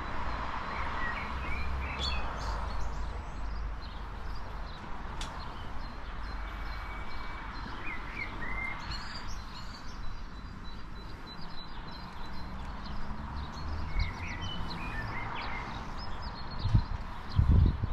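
Outdoor ambience: a few small birds chirping briefly here and there over a steady background hum. A few loud low rumbles come near the end.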